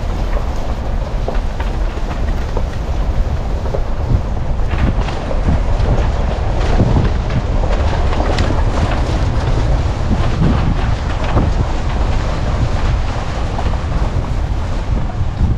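Wind buffeting the microphone: a loud, steady low rumble with constant crackling gusts.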